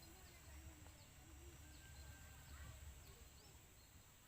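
Faint outdoor ambience: scattered short high bird chirps over a steady high hiss and a low rumble.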